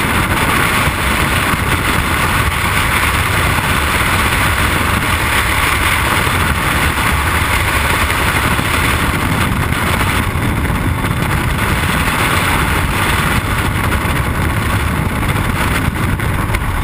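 Freefall wind rushing and buffeting over a helmet-mounted camera's microphone, loud and steady.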